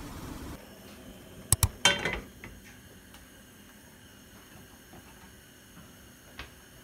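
Frying pan clicking and clattering against a gas stove's burner grate: two sharp knocks, then a short ringing metal clatter about two seconds in.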